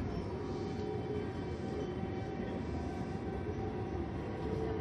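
Toei 5300 series subway train pulling out of a station, heard from inside the car: a steady running rumble with the whine of its GTO-VVVF inverter and traction motors. A new whine tone comes in near the end and rises slightly as the train gathers speed.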